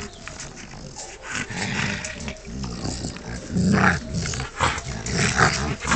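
Rottweiler growling in rough play while mouthing a man's hand, the growls coming in bursts and louder in the second half.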